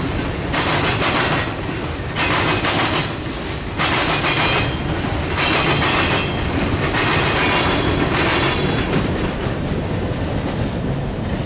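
Freight cars rolling past over a railroad diamond crossing: loud rhythmic rushes of wheel-on-rail clatter, about one a second as each car's trucks go by. The rushes stop about nine seconds in as the last car passes, leaving a fading low rumble.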